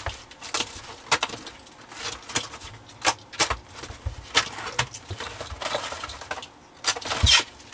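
A large cardboard shipping box being handled and opened: scattered crackles, scrapes and taps of cardboard and packing tape, with a louder knock near the end.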